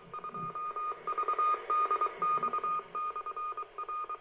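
A ham radio receiving a Morse code (CW) signal, played through a small external box speaker: a single beeping tone keyed on and off in short and long beeps over a steady hiss of band noise.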